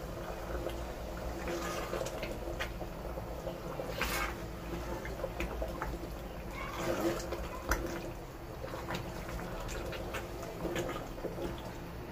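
A spatula stirring a thick tomato stew in a steel pot: wet sloshing and squelching, with occasional scrapes and taps against the pot.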